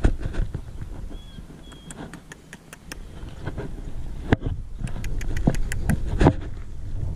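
Wind rumbling on the microphone, with scattered knocks and clicks of a hand-held camera being moved about, thickest in the second half. Two short high chirps sound a little after a second in.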